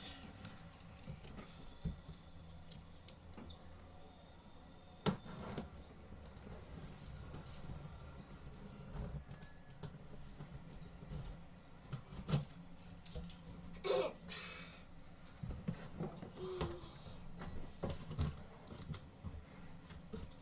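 Unboxing handling noise: packaging rustling, with scattered clicks and knocks as the box is opened and parts are taken out.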